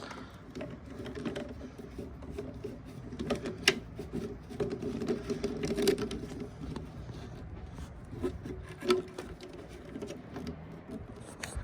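Plastic hose fittings being handled and pushed onto a pool sand filter pump, with scattered light clicks and knocks over a steady low hum.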